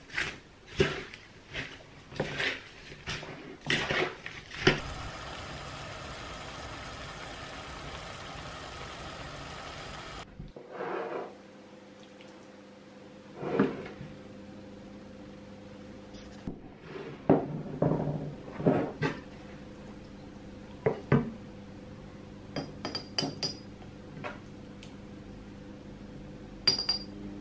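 A wooden spatula scrapes and knocks in a frying pan of chopped fruit and vegetables, followed by a few seconds of steady hiss. Later come scattered stirring knocks in the pan and, near the end, a metal spoon clinking against a small glass jar as the chunky ketchup is spooned in.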